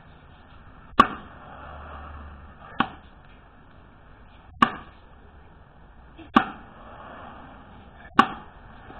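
Axe chopping into a wooden log, struck from above by someone standing on it: five sharp strikes at an even pace, a little under two seconds apart.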